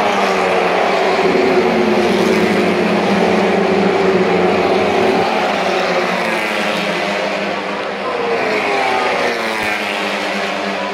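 Pack of TCR touring cars racing past at full throttle, their turbocharged four-cylinder engines overlapping in a loud, continuous din. The engine notes fall in pitch as the cars go by, then rise again near the end as they pull away.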